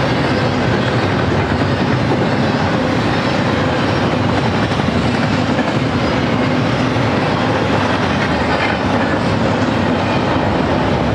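BNSF double-stack intermodal train's well cars rolling past: a loud, steady noise of steel wheels running on the rails.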